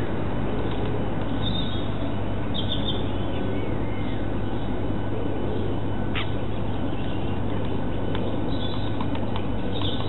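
Steady hiss and hum from an outdoor camera microphone, with faint short calls of small birds in the background and a sharp tap about six seconds in.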